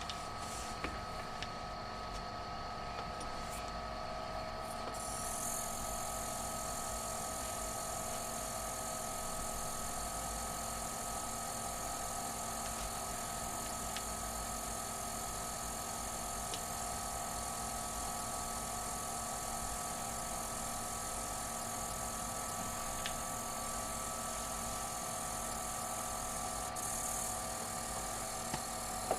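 Tesla V100 graphics card under deep-learning inference load, giving off a steady whine of several tones with a few faint clicks, and a high hiss that sets in about five seconds in. These are the strange noises that grow louder with the heavier YOLO model.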